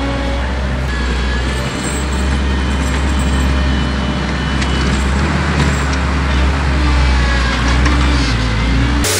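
Avant compact loader's engine running steadily as it drives and pushes snow with its front snow blade, with a broad scraping, rushing noise over the low engine drone. The sound changes abruptly just before the end.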